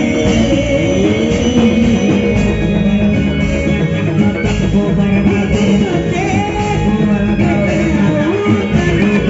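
Live Reog Indramayu accompaniment music playing steadily, with a singing voice weaving a wavering melody over the ensemble.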